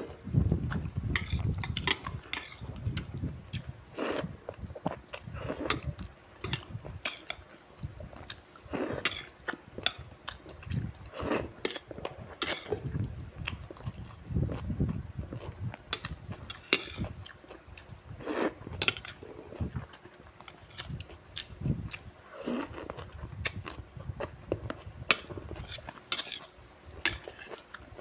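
Close-up eating sounds: instant noodles and kimchi being slurped and chewed, with metal chopsticks clicking against a ceramic plate now and then in short, irregular sounds.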